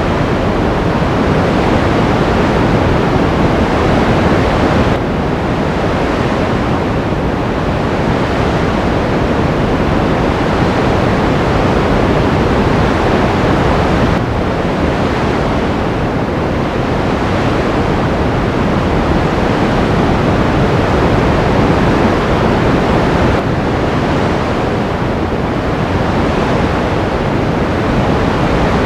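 Steady rushing wash of ocean surf, easing and building again about every nine seconds, with no tones or voices.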